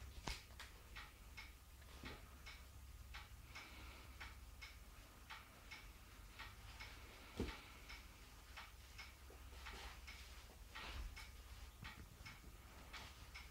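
Quiet room with a clock ticking in quick, even ticks, a little under three a second, and a single dull thump about seven seconds in.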